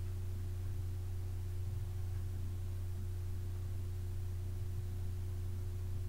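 A steady low hum with a fainter, higher steady tone above it.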